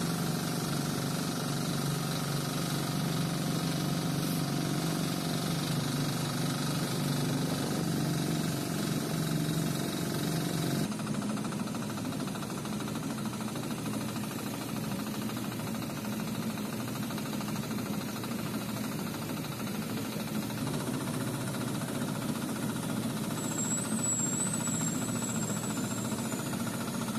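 Long-tail boat engine running steadily while the boat is driven along the canal. The sound shifts abruptly twice.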